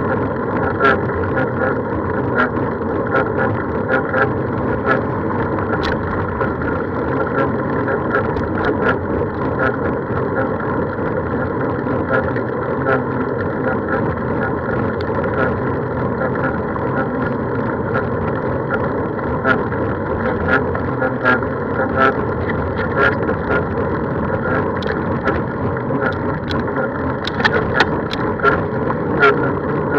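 A vehicle on the move, running steadily with a constant hum, and many light clicks and rattles scattered throughout.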